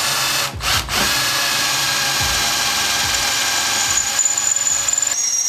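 Cordless drill boring a hole through a plate on a go-kart frame. It stops briefly about half a second in, then runs steadily with a high whine.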